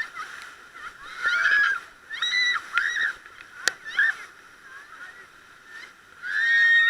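Rafters whooping and yelling in a string of shrill, held shouts, the longest near the end, with a single sharp click about halfway through.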